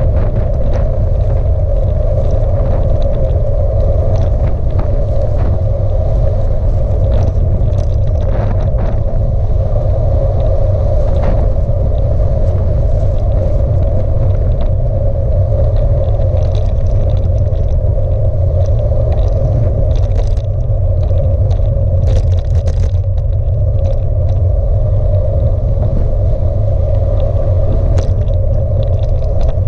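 Wind rumbling on the microphone of a camera on a moving bicycle, mixed with steady tyre and road noise from the tarmac lane. Short clicks and knocks from bumps in the road are scattered through it.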